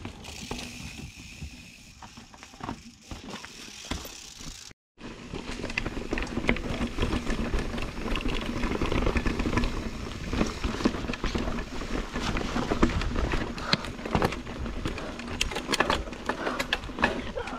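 Mountain bike ridden over a rocky dirt trail: the frame and drivetrain rattle and the tyres knock over rock and dirt, in dense sharp clicks over a low rumble. It is quieter for the first few seconds and gets much louder about five seconds in.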